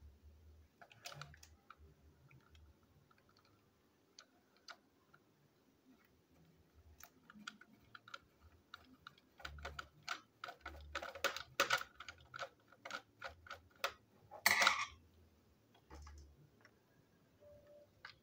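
Clicks and taps of hard plastic and a small metal tool as hands work on the underside of a plastic toy train engine, scattered at first, then a quick run of clicks and one louder clatter near the end.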